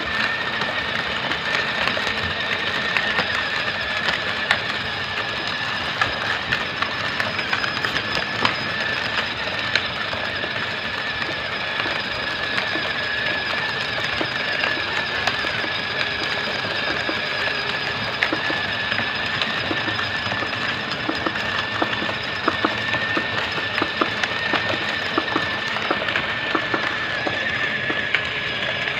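Battery-powered ride-on toy walking tractor driving along, its electric motor giving a steady high whine over a constant rattle of small clicks.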